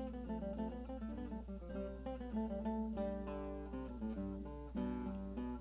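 Background music: an acoustic guitar playing a line of picked single notes.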